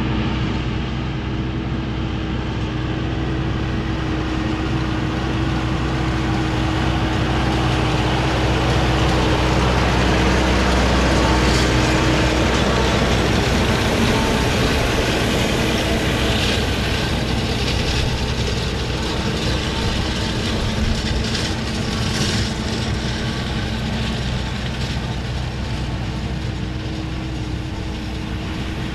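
John Deere tractor running steadily while pulling a working hay baler: a constant engine drone with a few sharp clicks from the machinery scattered through the middle.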